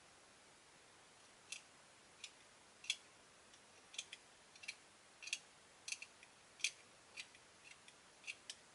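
A hand tool working on a small plastic model-kit part, cleaning up gate nub marks. It makes about fifteen short, sharp scratchy strokes at uneven intervals, starting about a second and a half in.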